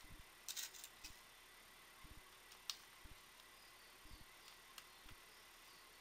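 Faint clicks, light knocks and a brief rustle of hands handling a laptop's case while opening a cover panel on its underside, with one sharp click near the middle, over near silence.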